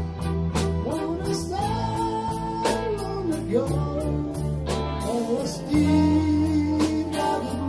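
Small live rock band playing an instrumental passage: electric guitar, bass guitar and drums, with a lead melody line bending in pitch over a steady bass and regular drum beats.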